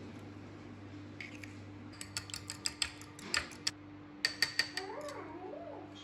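Eggs being beaten with a fork in a bowl: a quick run of sharp clicks of the fork against the bowl, in two bursts with a brief pause between. A faint steady hum runs underneath.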